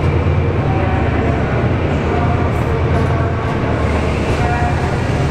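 Class 68 diesel locomotive, with its Caterpillar V16 engine, working under load as it hauls a Mk5 coach set away from a standstill. A steady low engine drone runs under the rumble of the coaches rolling past.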